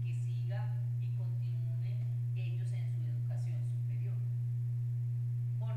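A loud, steady low hum: one unchanging pure tone that fills the recording, with a woman's speech into a handheld microphone heard faintly beneath it.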